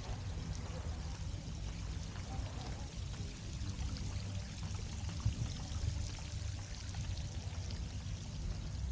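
Water pouring and trickling from ornamental fountains into shallow pools, a steady splashing wash over a low, fluttering rumble.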